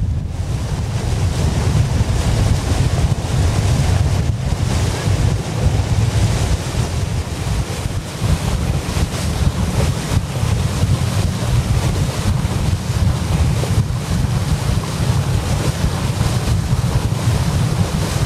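Wind buffeting the microphone at the bow of a Nelson 34 motor cruiser under way at about 12 knots, over the rush of water along the hull. It is a steady, noisy rumble, heaviest in the low end.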